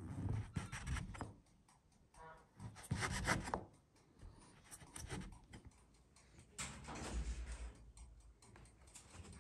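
Upturned cut-glass tumbler pressed and twisted through rolled dough onto a floured wooden board to cut out rounds: short bursts of rubbing and light knocks of the glass rim on the wood, several times.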